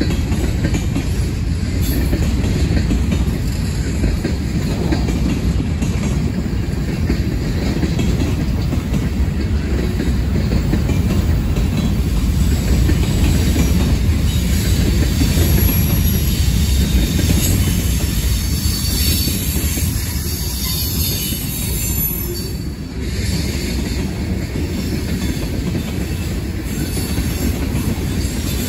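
Freight cars rolling past on steel rails: a steady, loud rumble of wheels and car bodies, with a thin high squeal from the wheels through the middle stretch.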